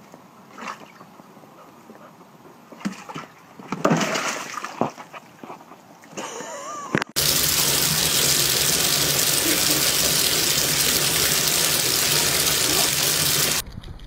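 Bathtub faucet running hard, water pouring onto a wet dog's head: a loud, even rush that starts suddenly about seven seconds in and stops abruptly just before the end. Before it, only a few quieter scattered knocks and scuffs.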